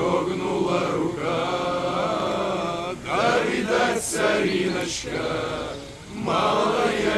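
Men's voices singing a slow song, holding long notes with short breaks between phrases.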